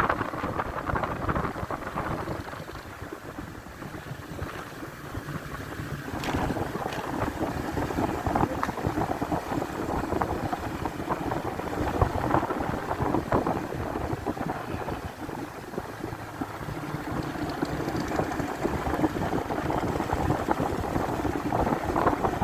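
Motorcycle engine running on the move, with wind noise on the microphone; it eases off twice and picks up again each time.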